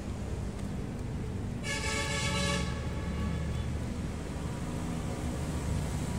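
A horn sounds once, for about a second, a little under two seconds in, over steady wind rumble on the microphone and distant city traffic.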